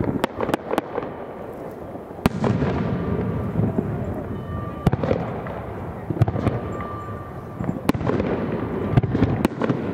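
Japanese aerial firework shells bursting overhead: a quick run of sharp bangs in the first second, then single booms every second or two, each followed by a long rolling rumble that slowly dies away.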